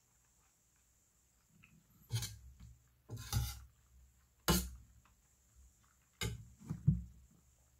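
Metal spoon clinking and scraping in a metal pot of soup in about five short bursts, with chewing of mouthfuls between them.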